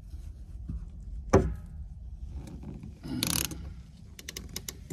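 Ratchet PEX cinch tool clicking as stainless clamps are tightened onto the PEX lines at the barrel fittings: a sharp knock about a second and a half in, a brief scrape, then a run of quick ratchet clicks near the end.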